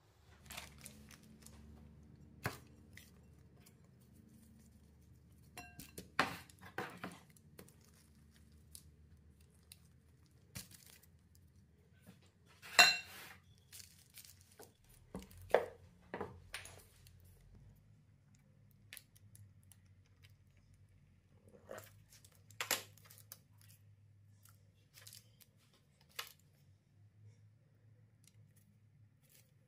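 Scattered short knocks, rustles and scrapes of hands and utensils at food preparation, the loudest about halfway through, over a faint steady low hum.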